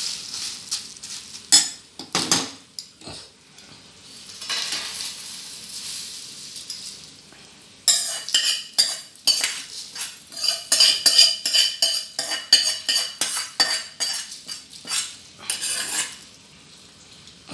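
A steel spoon stirs dry-roasted Byadgi red chillies in a hot pan with some sizzling. About eight seconds in, the pan is tipped and the spoon scrapes and taps the chillies out onto a steel plate, with many quick ringing metallic clinks.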